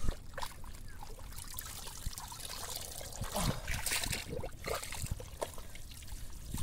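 Wet mud squelching and muddy water trickling as hands dig through soft mud and waterlogged rice straw, in irregular short wet sounds.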